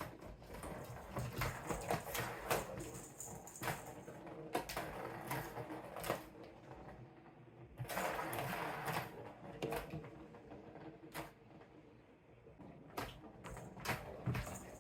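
A cat batting at a Turbo Scratcher toy: the plastic ball rattles and rolls around the plastic track, with irregular clicks and knocks and a few longer rolling runs.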